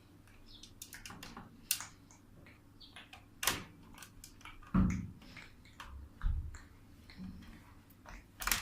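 Scattered clicks, taps and a few dull knocks of computer hardware being handled and fitted into a metal PC case. The louder knocks come about three and a half, five, six and eight and a half seconds in.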